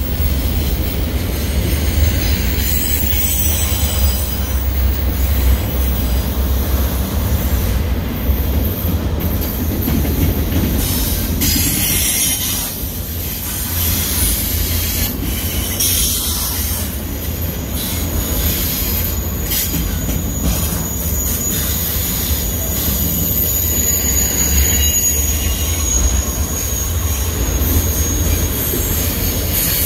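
Double-stack container cars of a freight train rolling past close by: a steady, loud rumble of steel wheels on the rails, with scattered clicks. A thin, high wheel squeal runs through the later part.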